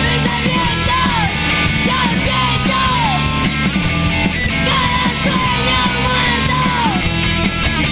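Loud rock song from a full band, steady throughout, with a high melody line that slides down in pitch about once a second.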